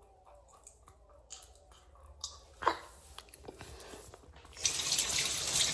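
A few small clicks and knocks, then a tap turned on about four and a half seconds in, water running steadily into a sink.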